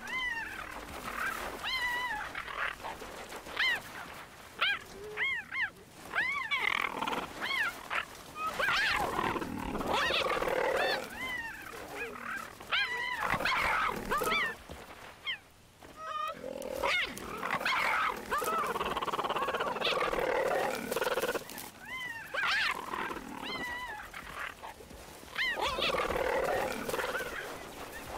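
Male cheetahs fighting: many short, high calls that rise and fall in pitch, mixed with harsher snarling and growling. There is a brief lull about halfway through.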